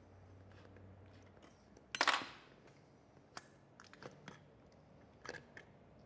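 A small screwdriver and fingers work screws and parts on a hard drive's metal enclosure and circuit board, making scattered light clicks and scrapes. One louder brief scrape comes about two seconds in.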